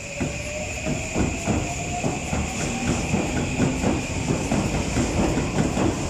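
Electric commuter train moving out past a platform: the traction motors' whine rises in pitch as it gathers speed, over the repeated clacking of wheels on the rail joints.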